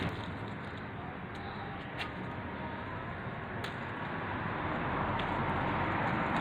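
Citrus fruits being picked by hand from the tree: a few light snaps and leaf rustles, two of them sharper (about two seconds in and near the four-second mark), over a steady outdoor background hiss.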